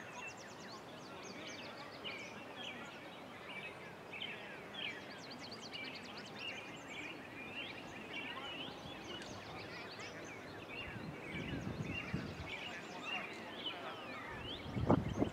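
Many small birds chirping and twittering in quick short calls, over a faint outdoor hiss, with a couple of low rumbles near the end.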